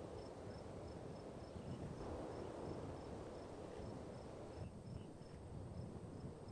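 Outdoor savanna ambience: an insect chirping in short, high pulses, about three a second, over a steady low rumble.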